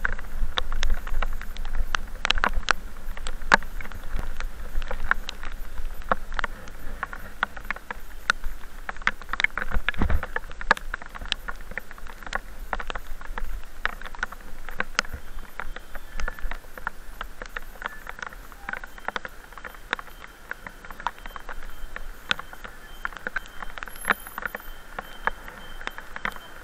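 Raindrops tapping irregularly on the camera while riding in the rain, over a steady buzzing hum and a low rumble of wind and road that eases off in the second half. A single low thump comes about ten seconds in.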